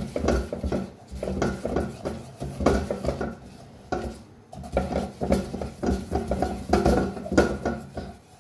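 Spatula scraping and knocking against a metal saucepan as flour is stirred and toasted in oil for a roux, in repeated strokes that come in a few bursts with short lulls.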